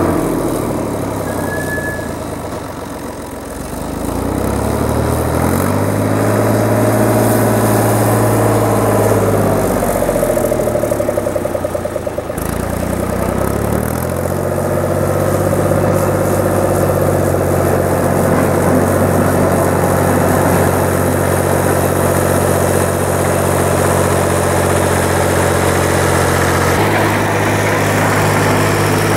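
Long 510 farm tractor's engine running as it moves with a box blade. Engine speed drops and picks up again twice in the first fourteen seconds, then holds steady, shifting slightly near the end.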